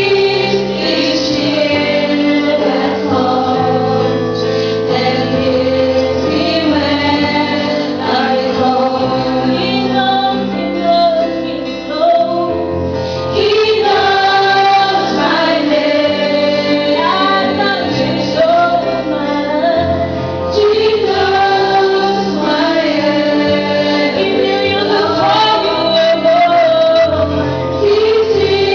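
Gospel worship song: women's voices and a choir singing over held bass notes that change every couple of seconds.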